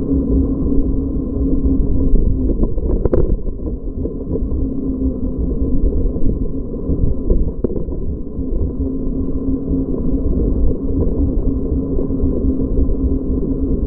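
Ride noise on an action camera riding a Super73 S1 electric bike: a low, muffled rumble of wind over the microphone with a steady hum, and a single knock about three seconds in.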